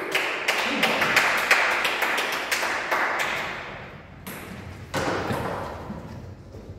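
A run of light taps and clicks echoing in a large hall, over a rushing hiss that fades over about four seconds and comes back briefly about five seconds in.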